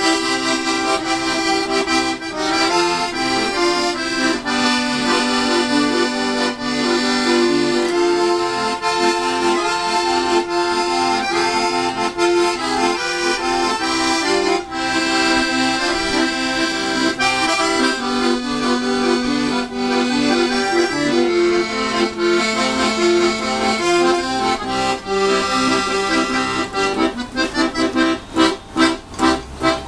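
Accordion playing a tune, several notes sounding at once and changing steadily. Near the end the sound pulses rapidly in loudness, several times a second.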